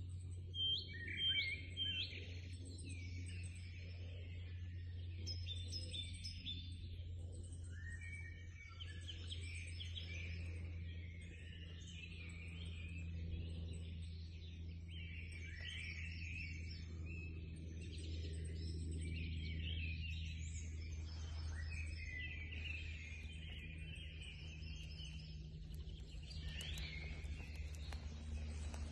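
Several songbirds singing and calling at once, overlapping chirps, trills and short whistled phrases, with a loud cluster of repeated high notes about a second in. A steady low rumble runs underneath.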